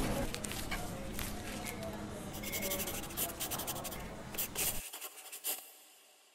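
Pen scratching across the paper of a spiral notebook in short, quick writing strokes, fading away near the end.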